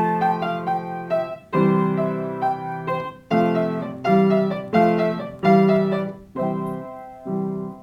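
Piano playing an instrumental passage between sung lines of a song: struck chords that ring and fade, repeating about every second with a few melody notes above them. The chords get quieter near the end.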